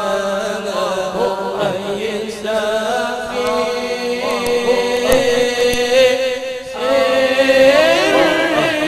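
Men's voices singing a nasyid, an Islamic devotional song: a lead voice sings an ornamented, wavering melody over other voices holding a steady note.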